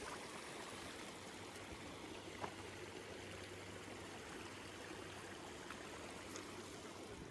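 A small mountain stream running, a steady even rush of water, with one faint tick about two and a half seconds in.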